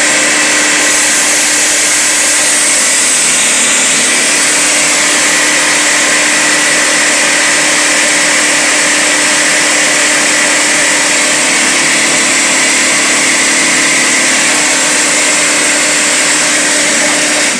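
High-pressure air compressor with a three-stage AK-150 tank compressor head, driven by a 2.5 kW three-phase electric motor, running steadily under load as it pumps up toward 300 bar, with a constant hum and whine. It cuts off suddenly at the very end.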